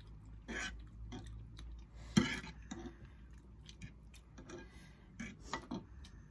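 Eating sounds: soft chewing of noodles and scattered small clicks of forks against a metal saucepan, the sharpest click about two seconds in.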